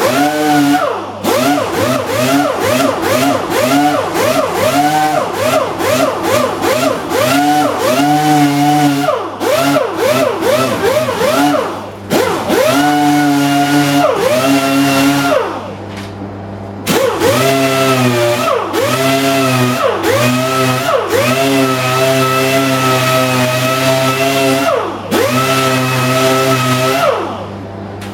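Hand-held orbital sander with a 40-grit disc sanding high-fill primer on a plastic bumper. Its pitch swells and drops again and again, about twice a second in the first half, then holds steadier through longer strokes, with a few short pauses.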